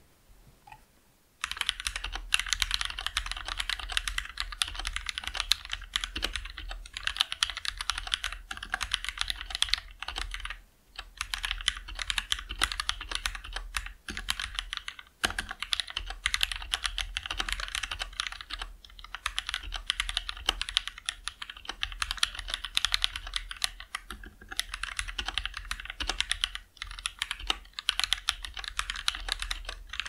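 Fast typing on a modded Anne Pro 2 60% mechanical keyboard with Gateron Red linear switches lubed with Krytox 205G0, EVA case foam, band-aid and burger mount mods, and Cherry-profile PBT keycaps. A dense, continuous clatter of keystrokes starts about a second and a half in, broken by a few brief pauses, with a tight, poppy sound.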